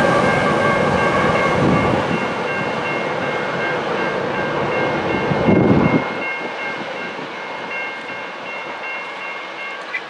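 Freight train of double-stack container cars rolling past at track speed, its rear diesel locomotive going by, with a steady high ringing tone from the train over the rumble. About six seconds in, the heavy low rumble drops off suddenly, and the train fades as it moves away.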